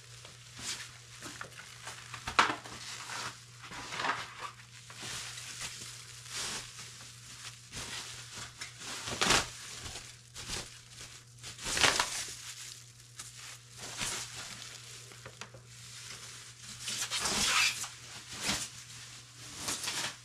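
Plastic protective bag crinkling and rustling in irregular bursts as a guitar is worked out of it, loudest about nine, twelve and seventeen seconds in.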